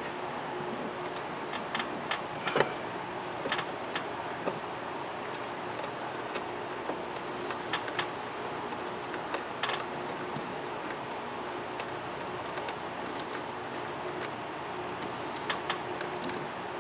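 Scattered light clicks and taps of fingers starting a screw by hand into the wiper motor's pulse-board cover, over a steady background hum.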